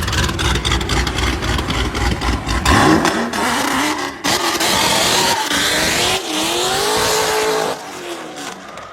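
A muscle car's engine running loud and revving, its pitch climbing about three seconds in and again between about six and seven and a half seconds.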